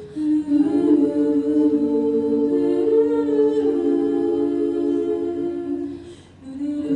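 An a cappella group of six voices singing slow held chords into microphones, the notes changing now and then, with a short break about six seconds in before the chord comes back.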